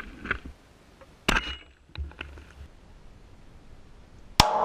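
A single Dragunov SVD sniper rifle shot about a second in. Near the end, a louder sharp clang of a bullet striking a steel plate target, which rings on with several steady tones.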